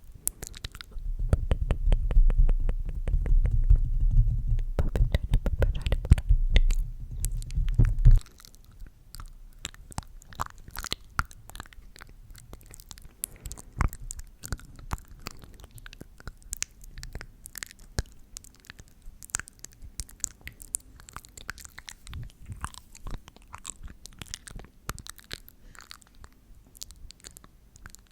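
Close-miked ASMR mouth sounds: wet, sticky clicks and smacks right at the microphone. A dense run of them over a low rumble fills the first eight seconds or so, then they thin out to scattered clicks.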